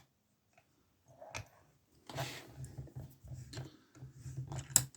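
Small metallic clicks and rustles from handling a lever padlock and lock picks, after a second of near silence. A low pulsing sound, repeating a few times a second, runs under the clicks from about two seconds in.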